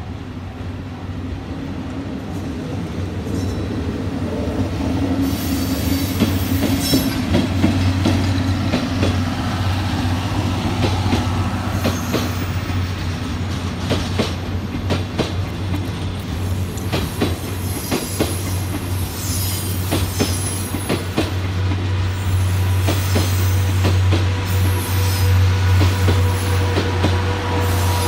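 The locomotive-hauled Salon Car Naniwa passenger train passing close by, its steady rumble growing louder over the first several seconds. A rapid run of wheel clacks over the rail joints follows as the coaches go by.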